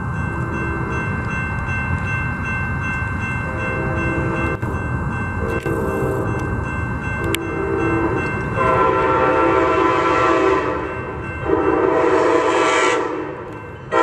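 Passenger train's locomotive horn blowing for a grade crossing: several shorter, fainter blasts, then two long, loud blasts in the second half, over the rumble of the oncoming train. A crossing bell rings steadily throughout.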